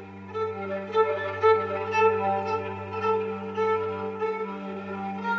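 Recorded film score of slow string music: a bowed melody of long held notes over a steady low sustained note.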